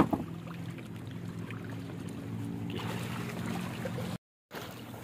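Boat engine idling with a steady low hum, with a sharp knock on the boat at the very start. The hum cuts off abruptly a little after four seconds, giving way to a noisier wash.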